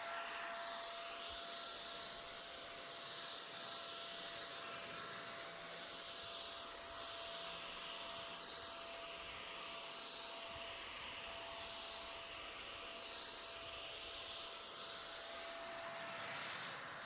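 Total TT3506 electric paint spray gun running and spraying: a steady motor whine under a continuous hiss of atomised coating, the hiss slowly shifting in tone as the gun is moved.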